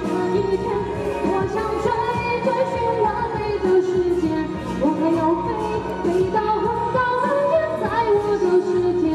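Woman singing a song live into a handheld microphone over a backing track, amplified through a PA system, her voice gliding between long held notes.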